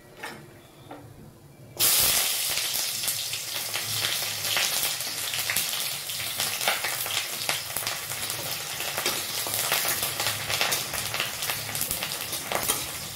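Chopped onions dropped into hot oil in a kadai (wok). A sudden loud sizzle starts about two seconds in, then the onions fry steadily while a ladle stirs and scrapes them in the pan.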